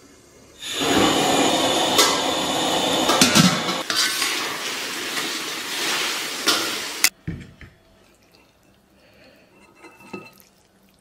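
Potato noodles, fried tofu and braising broth bubbling and sizzling in a wok as they are stirred, with a few sharp clicks of the utensil against the wok. The sizzling cuts off abruptly about seven seconds in, leaving only faint sounds.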